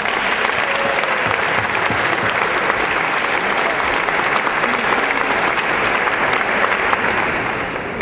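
Audience applauding: many hands clapping in a dense, even patter that starts to die away near the end.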